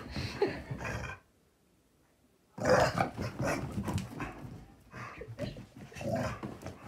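Two dogs play-fighting, growling fiercely in play. The growls break off about a second in and stop completely for a second and a half, then start again.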